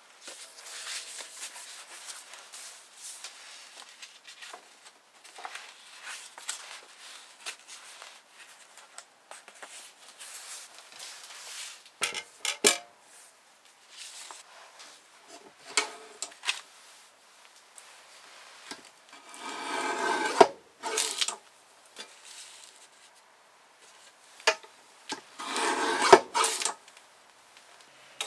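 Sheets of folded paper rustling and sliding as they are handled on a wooden bench. About halfway through come a few sharp taps, and later two louder rubbing scrapes, each about a second or two long.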